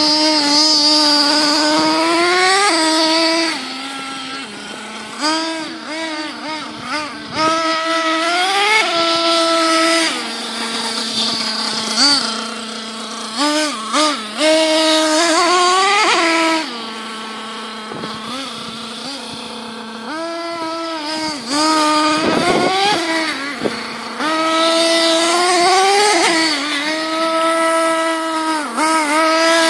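Thunder Tiger MTA4's S28 .28 nitro engine, fitted with a twin exhaust, being revved in repeated throttle blips. Between them it drops back to a steady, lower-pitched idle, with longer idles about ten seconds in and again between roughly seventeen and twenty seconds in.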